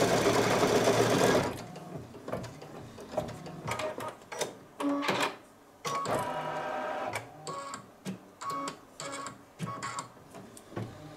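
Single-needle embroidery machine stitching a circular placement line. It runs loud and continuous for about the first second and a half, then goes on in shorter stop-start runs with quieter gaps between them.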